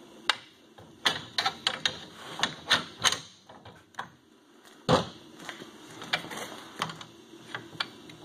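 Irregular metallic clicks and clanks as a coil torsion spring is worked onto a snowmobile rear suspension skid, with a single heavier knock about five seconds in.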